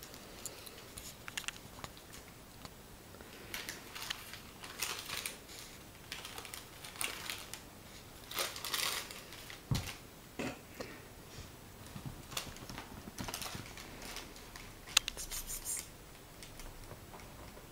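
Irregular scratching, rustling and clicking of a kitten's claws catching on a fleece robe and sofa fabric as it plays, in scattered clusters with a few sharper ticks.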